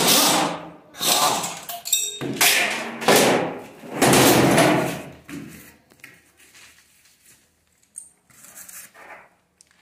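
Air impact wrench running in four bursts of about a second each in the first five seconds, undoing the exhaust fasteners. Then a few faint knocks of tools on metal near the end.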